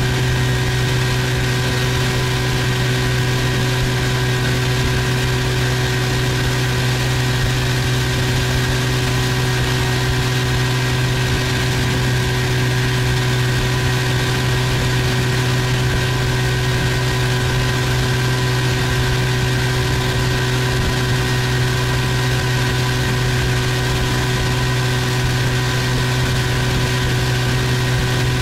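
Outboard motor, freshly tuned with new spark plugs, running at a steady cruising speed: an unbroken low drone under an even hiss of wind and water.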